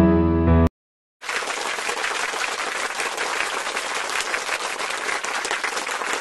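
Crowd applause: many hands clapping steadily, starting about a second in. Just before, a piano tune cuts off abruptly and leaves a moment of silence.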